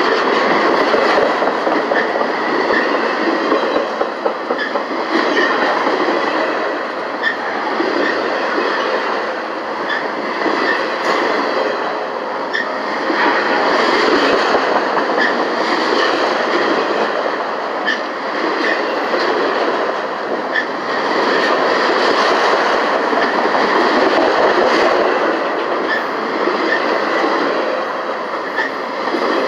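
Freight train of autorack cars rolling past at close range: a steady rumble of steel wheels on rail, with scattered light clicks and clatter from the wheels and cars.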